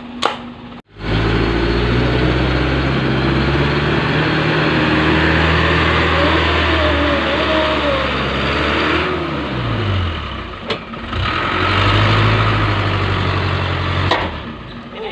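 Loaded diesel dump truck's engine revving hard under load as the truck struggles in soft mud with its rear wheel sunk in. The engine eases off about ten seconds in, with the note falling, then revs up again and drops away near the end.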